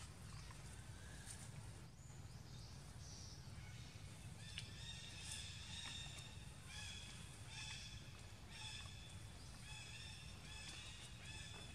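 Faint, short, high-pitched animal calls repeating about once a second from about four seconds in, over a low steady outdoor rumble.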